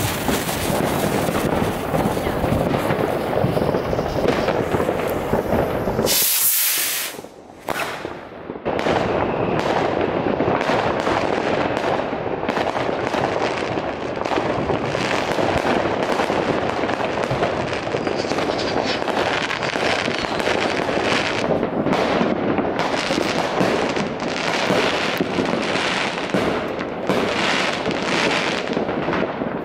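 Many fireworks and firecrackers banging and crackling in a dense, continuous barrage. A short burst of hiss comes about six seconds in, followed by a brief lull before the barrage resumes.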